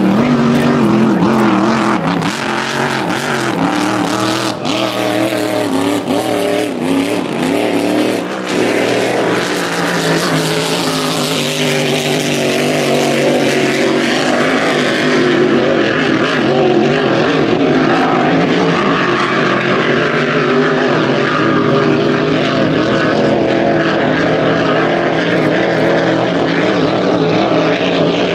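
Racing hydroplane's engine running flat out: a loud, steady engine note with a spray hiss over it.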